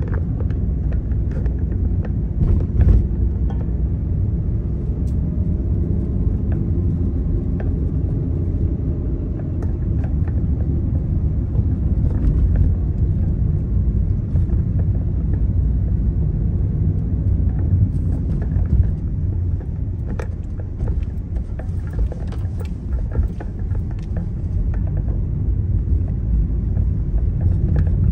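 Car on the move: a steady low rumble of engine and road noise, with a few faint clicks.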